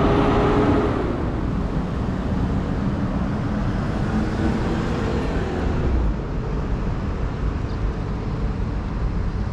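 City road traffic: cars passing close by, with a steady low rumble. A passing car's engine is louder in the first second or two, then fades.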